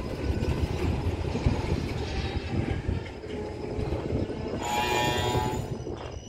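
NCA freight train wagons rolling slowly past with a steady low rumble. About four and a half seconds in, a shrill tone sounds for about a second, from the train's brakes or horn.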